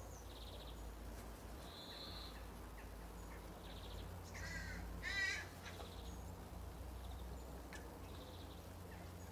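A raven gives a wavering, harsh call about four and a half seconds in, the loudest sound, among brief high chirps from small birds.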